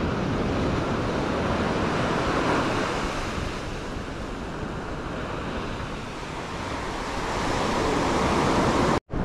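Surf washing onto a sandy beach from a flat, calm sea: a steady wash of waves that eases off past the middle and builds again near the end, then cuts off abruptly.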